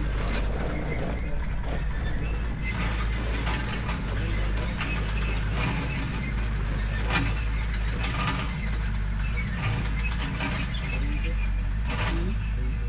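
A steady low engine drone, with frequent short metallic clanks and clicks from work on heavy machinery.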